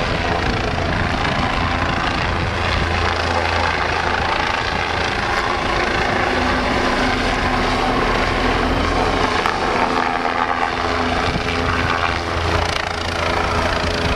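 A low-flying helicopter, its rotor and engine running steadily and loudly.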